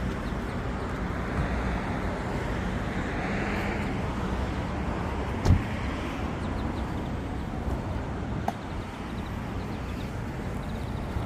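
Steady outdoor rumbling background noise, with one sharp thump about five and a half seconds in and a faint click later.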